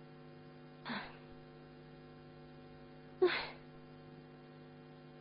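Steady electrical mains hum, broken twice by a brief breathy vocal sound, about a second in and again a little past three seconds in.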